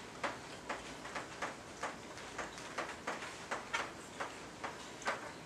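Chalk writing on a blackboard: a quick irregular run of short taps and scratches, about three or four a second.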